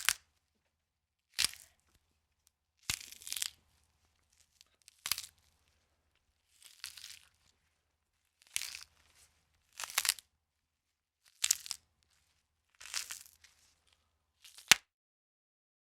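A series of bone-cracking sound effects: about ten short, sharp cracks and crunches, one every second and a half or so, some with a brief crackle trailing after them, separated by silence.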